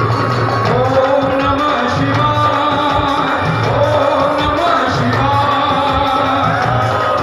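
Live amplified devotional song: a voice singing a melody over a band with a steady low drum and bass beat, the singing line entering about a second in.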